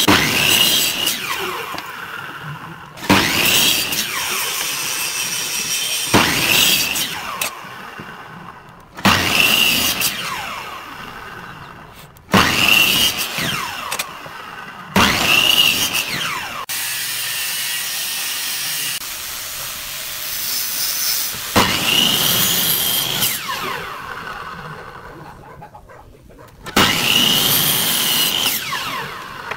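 Electric miter saw started about eight times in a row, each time whining up to speed, cutting through a thin wooden strip, then winding down.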